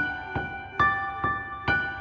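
Piano intro of a karaoke backing track: chords struck a little over twice a second in a steady rhythm, each ringing and fading before the next.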